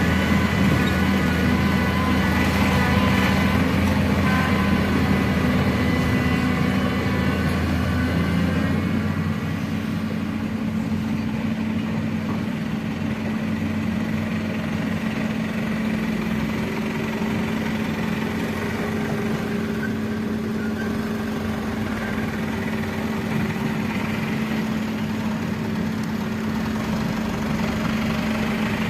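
Excavator's diesel engine running steadily, with its pitch stepping up slightly about nine seconds in. A fainter higher whine joins partway through.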